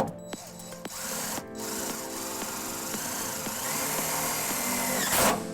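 Power drill driving a self-tapping screw through a trailer-wiring ground wire into a truck's steel frame rail. It runs steadily for about four seconds, starting about a second in, with a short louder burst near the end.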